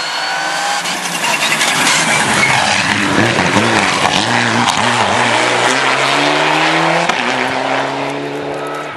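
Mitsubishi Lancer Evolution rally car's turbocharged four-cylinder engine approaching at speed and passing close by through a corner, the revs rising and falling in the middle, then climbing steadily as it pulls away near the end.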